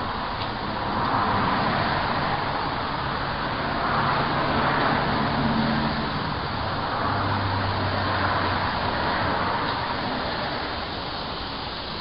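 Road traffic: three vehicles pass one after another, each a swell of tyre and engine noise over a steady hiss.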